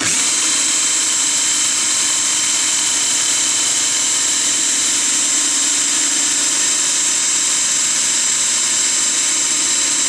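Power drill running steadily at full speed, a constant whine with several held tones, spinning the shaft of an X13 permanent-magnet blower motor that is working as a generator and lighting a bulb.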